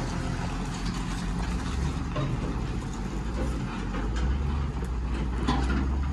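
Farm tractor engine running steadily while towing a flatbed trailer, growing louder about four seconds in.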